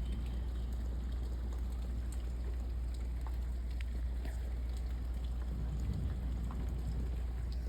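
Steady rain falling, a continuous rush with a deep low rumble underneath and scattered sharp ticks of single drops.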